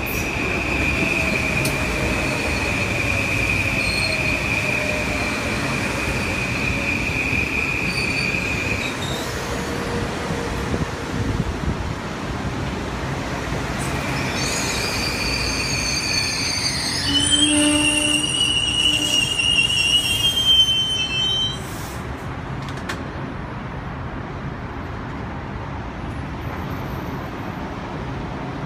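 Electric passenger train moving through the station with a steady high-pitched wheel squeal and a lower whine slowly falling in pitch. About two-thirds through it turns louder, with several squealing tones that cut off suddenly.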